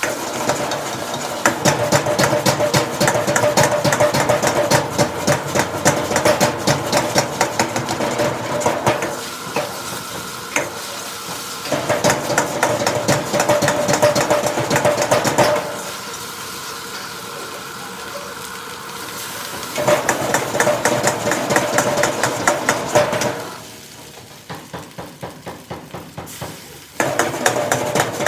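Metal spatula stirring and scraping rapidly in a wok while the food sizzles over high heat. The stirring eases twice, leaving a quieter sizzle, the second time with slower, evenly spaced taps.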